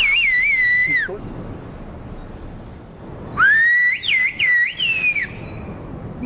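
Human whistled speech in the traditional whistled Greek of a mountain village: two loud, high whistled phrases. Each rises onto a held pitch and is broken by quick up-and-down glides. The first ends about a second in, and the second runs from about three to five seconds in.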